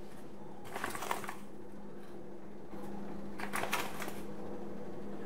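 Ground coffee spooned from a paper bag into a drip coffee maker's filter: two short bursts of spoon scraping and paper-bag rustling, about a second in and again near four seconds, over a steady low hum.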